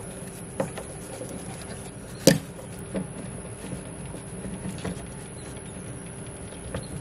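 Hands fitting an electric grey-water drain unit onto a brass pipe fitting: scattered light clicks and knocks of plastic and brass parts being handled and screwed together, with one sharp knock about two seconds in.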